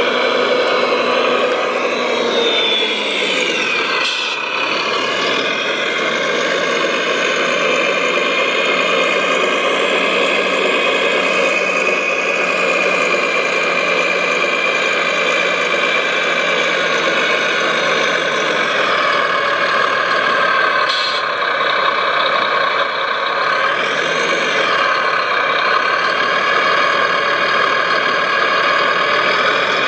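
Radio-controlled construction machines' motors running with a steady whine, the pitch dropping about three to four seconds in and rising and falling again later on as the machines slow and speed up.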